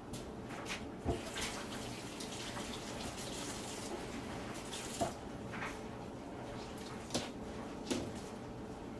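Water running from a tap, with a few sharp knocks about 1, 5, 7 and 8 seconds in.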